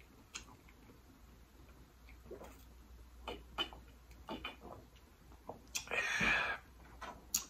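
Plastic soda bottle handled and drunk from: scattered small clicks and crinkles, a few gulps, then a short breathy exhale a little after six seconds in, the loudest sound.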